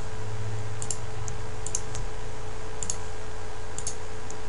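Computer mouse buttons clicking four times, each a short pair of clicks, about a second apart, over a steady electrical hum.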